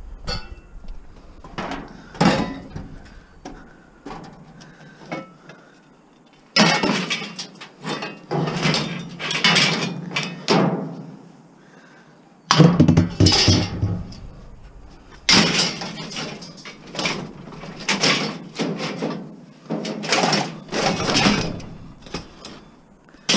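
Pieces of scrap metal being thrown into a scrap bin: a string of clattering crashes, sparse at first, then longer rattling crashes from about six seconds in, the loudest about twelve seconds in.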